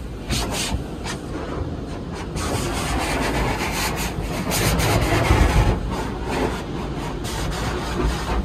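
Automatic car wash water jets spraying the car, heard from inside the cabin: a dense hiss of water on the glass and body that comes in uneven surges, over a steady low rumble.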